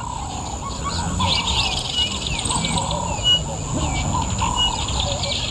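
Many birds chirping and trilling at once in the bush, with short repeated whistles and lower warbling notes, over a steady high-pitched insect hum.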